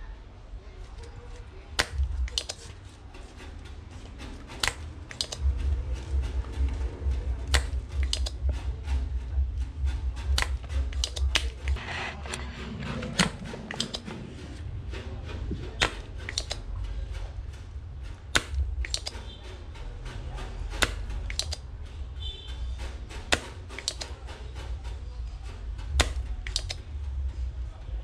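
Irregular sharp clicks and taps, several a second at times, from small tools and parts being handled during bench repair work, over a steady low hum.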